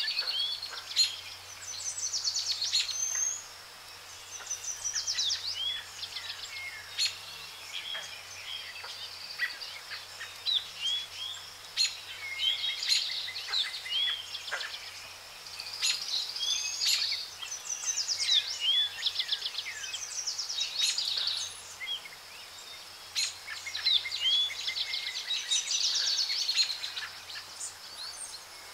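Birds chirping and singing, in bursts every few seconds of short sliding whistled notes and quick rattling trills.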